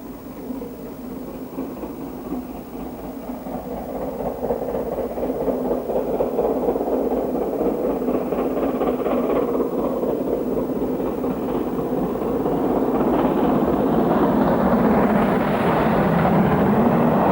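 Great Western Railway Castle-class four-cylinder 4-6-0 steam locomotive, Clun Castle, working a train on the main line. It grows steadily louder from about four seconds in and is loudest near the end, as it approaches.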